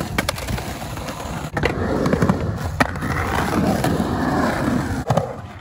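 Skateboard rolling on concrete, its wheels rumbling steadily and growing louder after about a second and a half, with a few sharp clacks.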